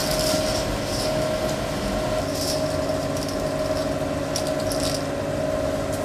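A steady droning hum of several held tones, with brief soft rustles about two and a half and four and a half seconds in.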